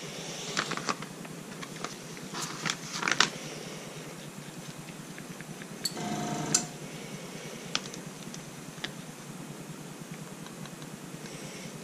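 Small clicks and taps of gloved hands handling hard plastic parts and a small paint jar, with a brief squeak about six seconds in.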